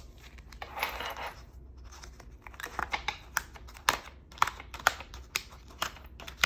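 Paper planner pages rustling, then a run of sharp clicks and snaps as pages are pulled off and pressed onto the planner's binding discs.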